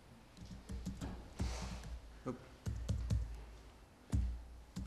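Typing and clicking on a laptop keyboard, irregular clicks and taps with a few dull knocks on the table.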